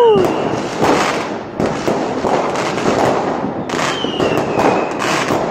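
Aerial fireworks going off one after another: a dense, continuous crackle of bursting shells with repeated sharper bangs, and a high whistle falling slightly in pitch about four seconds in.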